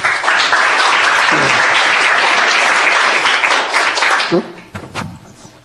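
Audience applauding, dying away about four and a half seconds in, with a few spoken words at the end.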